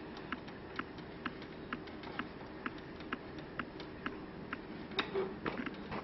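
Faint, evenly spaced light clicks, about two a second, over a low steady hum, with a slightly louder cluster of clicks about five seconds in.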